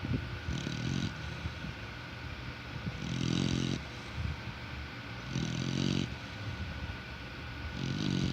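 Pit bull snoring in its sleep: four snores, one about every two and a half seconds, each a low snore with a breathy hiss on top.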